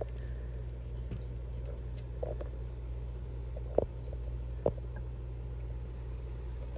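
Steady low hum of running aquarium equipment, with a few short soft knocks in the middle.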